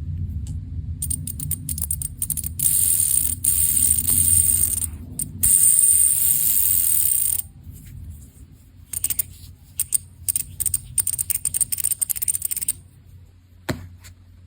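Fidget spinner gadget being spun and handled. It makes a loud, steady whirring hiss with a thin high whistle for several seconds, over a low hum. The whir stops suddenly, and a run of small, rapid mechanical clicks and rattles follows, ending with one sharp click.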